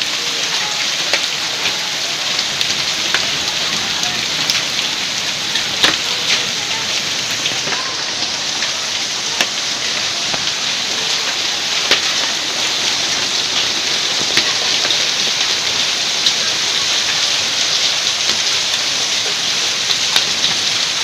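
A hailstorm with heavy rain pouring steadily, and sharp clicks of hailstones striking hard surfaces here and there throughout.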